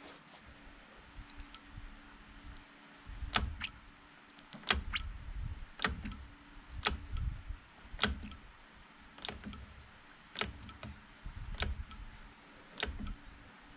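Handlebar brake lever of an ATV's master cylinder pumped repeatedly while the master cylinder is bled, building pressure. Each stroke gives a sharp click and a soft knock, about once a second, starting about three seconds in.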